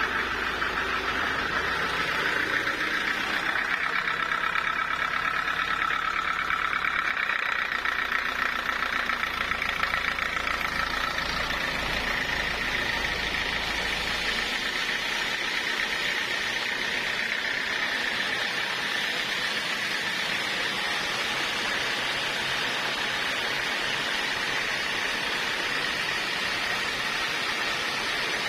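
Portable sawmill running with a steady high whine. The whine shifts a little higher about halfway through, and at about the same point a low rumble underneath drops away.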